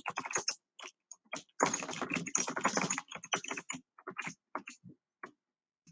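Typing on a computer keyboard: scattered key presses, a quick run of keystrokes in the middle, then slower, sparser presses that stop near the end.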